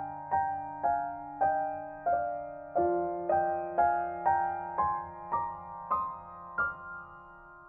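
Slow background piano music: single notes struck about twice a second over held low chords, with the chord changing about a third of the way in and the playing thinning out near the end.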